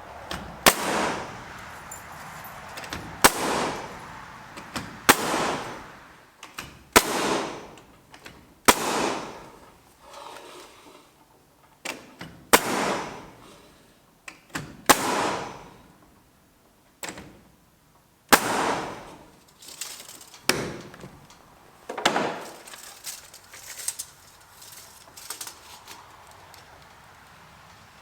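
Nail gun firing into 2x4 framing: about a dozen sharp shots, a second or two apart, each followed by a brief fading hiss of air.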